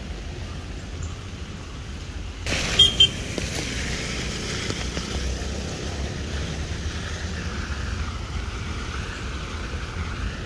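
Road traffic on a rain-wet road: a steady low rumble with a hiss. About two and a half seconds in, the hiss suddenly gets louder, with two brief sharp bumps, and stays up afterwards.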